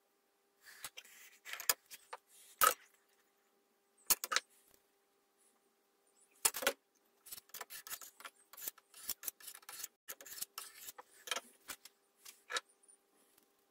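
Metal hand tools being handled on a workbench: scattered clicks and taps as vernier calipers and dividers are set, then a run of quick scratching strokes as the dividers' point scribes a circle into a stainless steel plate.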